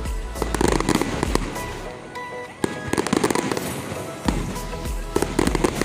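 Aerial fireworks going off in rapid succession: repeated sharp bangs and crackling, with music playing underneath.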